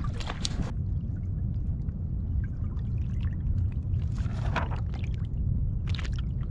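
Wind rumbling on the microphone, with water lapping and splashing against the kayak's hull in irregular bursts.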